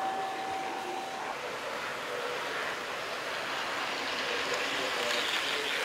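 Model trains running on the layout's track: a steady rolling noise, with a steady motor whine that stops about a second in, and the noise swelling near the end as a train passes close.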